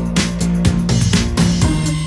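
Background music with a steady funky beat: drum hits about twice a second over a bass line.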